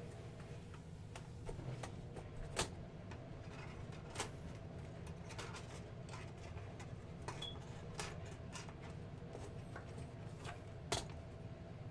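Scattered light clicks and knocks of a UNISYS PowerPort 386 laptop's keyboard and plastic case being handled and fitted back together, the sharpest three about 2.5, 4 and 11 seconds in, over a steady low hum.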